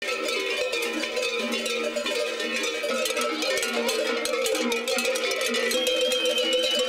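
Many large cowbells (cencerros) clanging without a break, swung and shaken by a group of children, the strikes overlapping into one continuous din.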